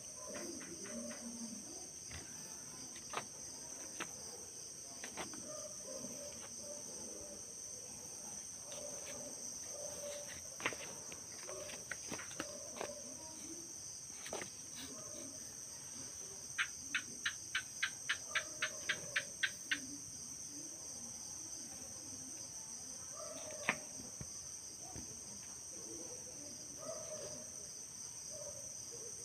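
Night insects, crickets, chirring in a steady high drone. About two-thirds of the way through comes a run of about ten sharp clicks, roughly three a second, with a few single clicks scattered elsewhere.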